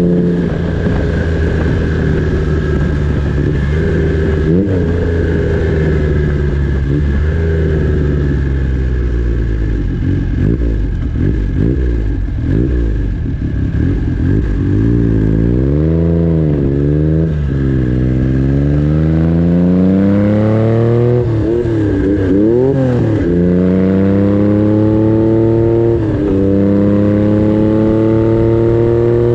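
Triumph Trident T150V three-cylinder engine with a 3-into-1 exhaust, revving up and down and then pulling up through the gears, its pitch climbing and dropping back at each shift several times near the end.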